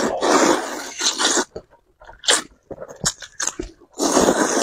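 A person slurping noodles: a long, noisy slurp in the first second and a half, short slurps and mouth sounds in between, and another long slurp near the end.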